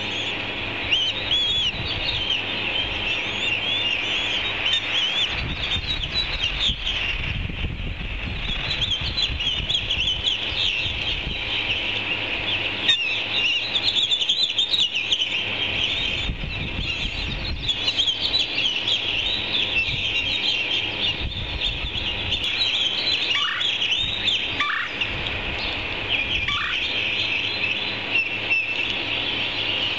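Many birds chirping and calling continuously in a dense, overlapping chorus, with a low rumble at times. Near the end, three short calls sweep downward in pitch.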